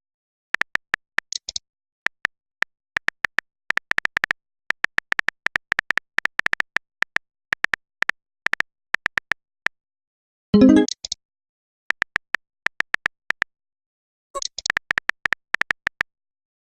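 Smartphone keyboard tap clicks in quick runs of typing, each a short high tick. A short pitched message alert sounds about ten and a half seconds in, and brief high swishes come near the start and near the end.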